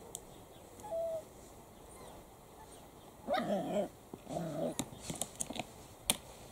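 Italian greyhound puppies vocalizing: a short high whine about a second in, then two brief bouts of whining and growling in the middle, followed by a few sharp clicks.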